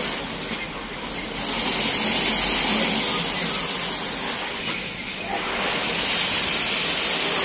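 Automatic car wash with anti-scratch brushes spraying water and spinning its brushes over a car: a loud, steady hiss of spray that swells twice.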